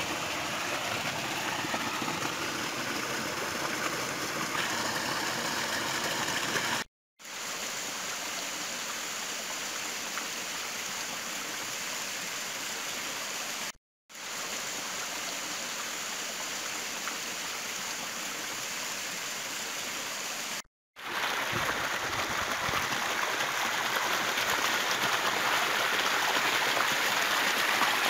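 Rocky stream running and splashing over boulders in a steady rush, broken by three brief gaps of silence. Near the end, water sheeting down a rock face is heard close up and somewhat louder.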